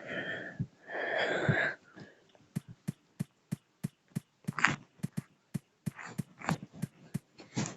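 A person sneezing: two breathy, noisy bursts in the first two seconds, each just under a second long. A run of sharp clicks, about three to four a second, follows them.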